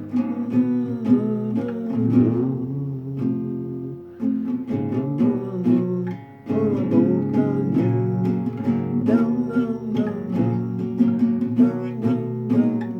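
Acoustic guitar strummed and picked in steady chords, with a man's voice singing along in places; the playing drops briefly about four seconds in and again around six seconds.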